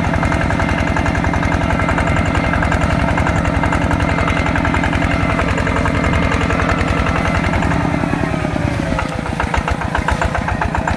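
Small single-cylinder diesel tractor engine running steadily. About eight seconds in its revs drop and it settles into a slower, more distinct chugging.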